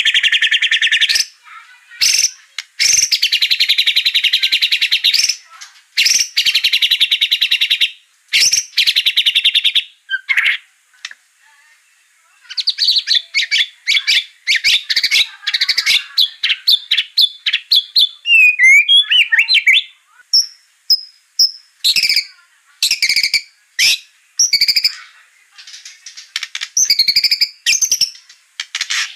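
White-rumped shama (murai batu) singing loudly. Long, fast rattling trills are broken by short pauses, and in the second half the song turns to clear high whistles, rising and falling slides and quick chirps. It is a lure (pancingan) recording meant to provoke a captive shama into heated song.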